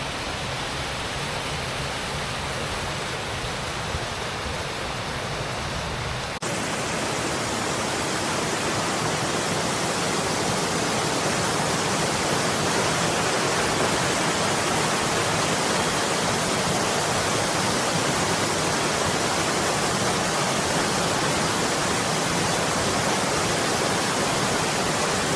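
Waterfall and fast stream water rushing steadily. About six seconds in it jumps to a louder, closer sound of the falling water.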